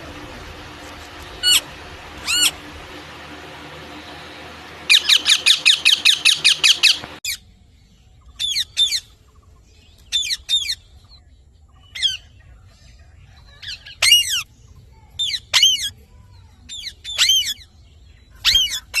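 Parrot squawking: two single calls, then a fast run of about a dozen harsh squawks, then short calls in ones and twos with pauses between. A steady low hum underlies the first part and cuts off suddenly about seven seconds in.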